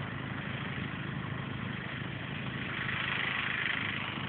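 A fire engine's engine runs steadily at the scene in a low, even hum. About three seconds in, a hiss swells over it.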